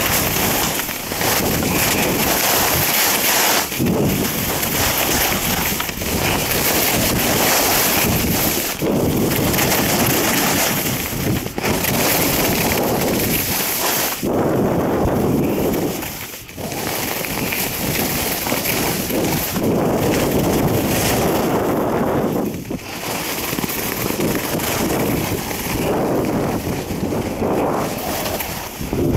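Loud, steady wind noise blowing over an action camera's microphone during a fast ski descent, mixed with the hiss and scrape of skis on hard-packed snow, easing briefly a few times.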